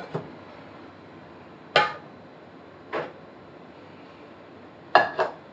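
Pots and a frying pan clanking on a cooktop: separate metal knocks with a short ring, a second or so apart, ending in a quick double clank.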